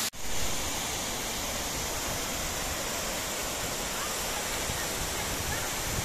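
Steady rush of water falling from a tall waterfall, a constant even roar of noise that sets in suddenly right at the start.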